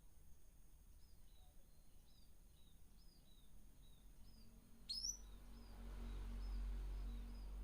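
Small caged birds chirping: a steady run of short, high chirps, about two a second, with one louder, sharp call about five seconds in. A low rumble builds underneath in the second half.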